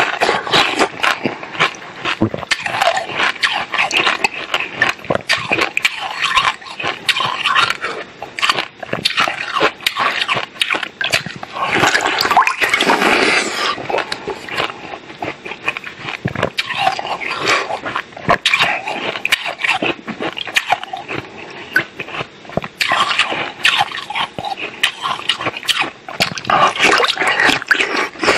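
Close-up sounds of a person biting and chewing ice frozen in the shape of a water bottle, a dense run of crunching and crackling with many sharp cracks, loudest about twelve seconds in.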